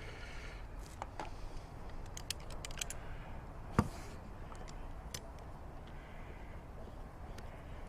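Scattered light metallic clicks and clinks of locking pliers (vice grips) being worked onto a rusted screw stud, with one sharper knock about four seconds in.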